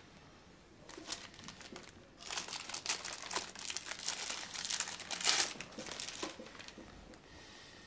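Newspaper pages rustling and crinkling as they are handled, in irregular bursts from about a second in, loudest through the middle and easing off near the end.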